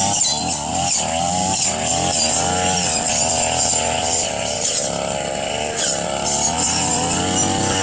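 Brush cutter engine running at high revs, its pitch wavering up and down as the blade cuts grass and undergrowth.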